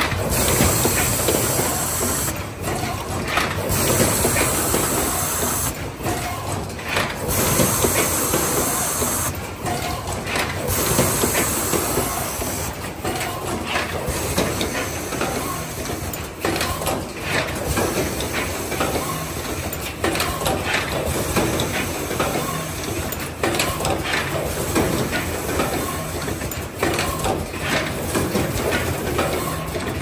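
Automatic power-cord assembly machine running: repeated bursts of air hiss every few seconds from its pneumatic actuators, over a steady mechanical clatter of many small clicks from its clamps and conveyor.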